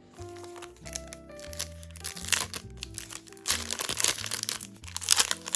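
Foil booster-pack wrappers of Yu-Gi-Oh trading cards crinkling and tearing as packs are opened, in several bouts that are loudest about two and five seconds in, over background music.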